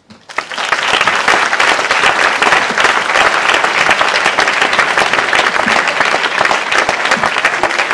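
Audience applauding: a dense, steady spatter of many people clapping, which swells up within the first second and holds at a constant level.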